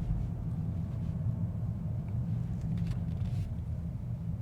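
Steady low rumble of the 2024 Mercedes-AMG S63 driving at a cruise, heard from inside the cabin.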